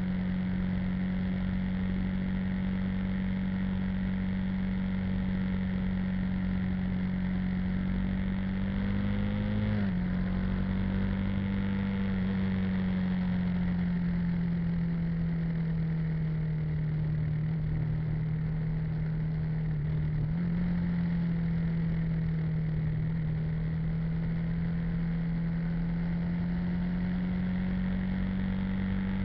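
Vehicle engine running steadily while driving along the road, with wind and road noise. Its pitch steps down about ten seconds in, sinks slowly, then jumps back up about twenty seconds in.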